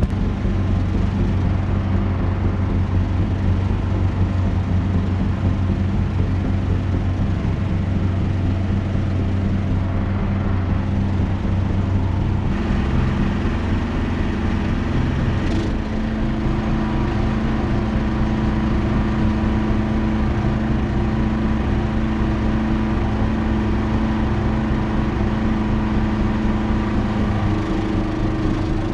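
Small excavator's engine running steadily, its note shifting about halfway through and settling slightly higher.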